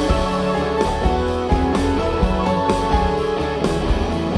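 Live band music: electric guitar and keyboards over a steady beat, with a drum stroke about every three quarters of a second.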